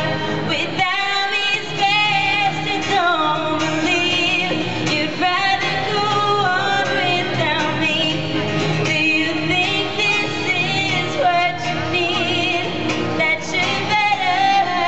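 A woman singing a slow pop song live, accompanying herself on acoustic guitar, her voice holding and wavering on long notes.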